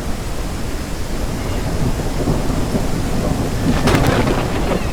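Thunderstorm: a continuous low rumble of thunder over rain, swelling from about two seconds in, with a sharp crack of thunder about four seconds in.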